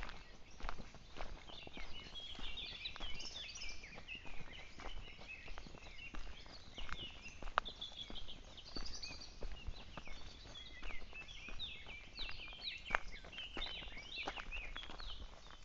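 Footsteps on a dry dirt trail strewn with fallen leaves, one after another at a walking pace, with small birds chirping and singing throughout.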